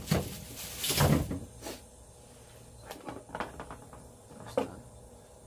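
Knocks, clicks and rustling from handling the parts and packaging of a condenser microphone kit during unboxing, the loudest knock about a second in.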